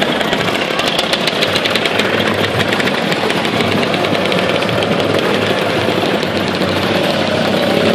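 A line of motor scooters riding past close by, many small engines running together in a steady, even mix.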